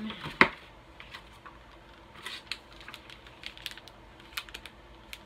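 Snack packages being rummaged out of a cardboard box: a sharp click about half a second in, then scattered light ticks and crinkles of wrappers and cardboard.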